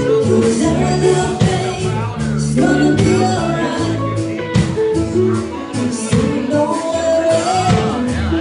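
A live band playing a song, with a singer over bass and drums.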